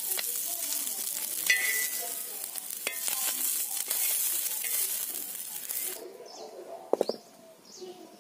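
Small fish sizzling as they fry in oil in a wok, with a metal spatula scraping and clicking against the pan as they are turned and lifted out. The sizzling stops suddenly about six seconds in, followed by a single knock.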